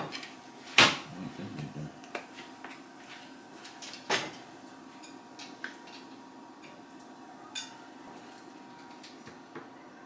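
Kitchen knocks and clatter from things being handled and set down: a sharp knock about a second in, another about four seconds in, and a few lighter taps after.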